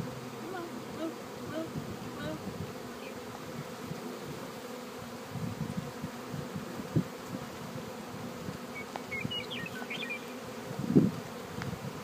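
Honeybees swarming around an open wooden hive, buzzing in a steady hum, with a few low thumps, the loudest near the end.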